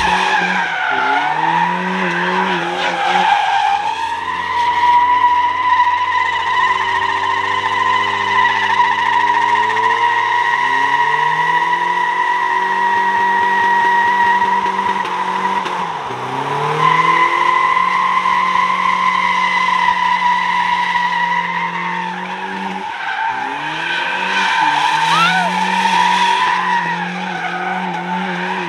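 Vehicle tires squealing in one long, steady burnout over a revving engine, the squeal briefly breaking about 16 seconds in before it picks up again.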